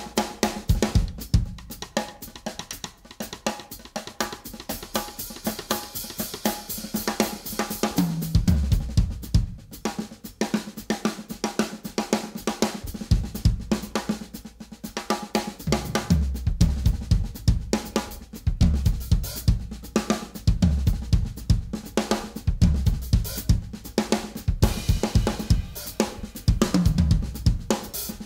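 Acoustic drum kit played with sticks in a dense, busy pattern of snare, bass drum, hi-hat and cymbal hits, with clusters of rapid kick-drum strokes.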